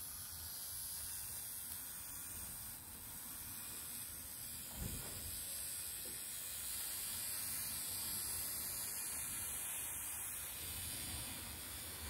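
Trix H0 BR 98 model tank locomotive running along the track, its small electric motor and gears giving a steady whirring hiss that swells slightly as it passes close. A soft knock sounds about five seconds in.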